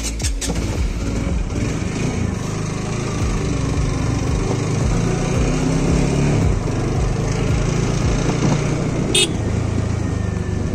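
Motorcycle engine running as the bike pulls away from a stop and rides slowly along a bumpy dirt track, with road and wind noise. A brief high-pitched blip about nine seconds in.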